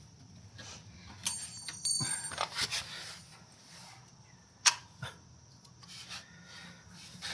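Metal hardware being handled: a ringing clink about a second in, a clatter of knocks around two seconds, and one sharp click past the middle, as a pin is pulled and a cable routed on the mulcher's mount.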